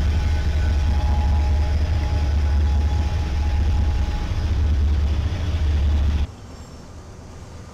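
Freight train rolling past close by: a loud, steady low rumble of the cars following a CN locomotive, with a faint thin high tone for a few seconds. It cuts off abruptly about six seconds in to a much quieter background.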